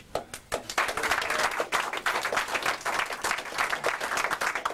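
A small group of people applauding a prize winner. It starts with a few scattered claps and fills out into steady clapping within the first second.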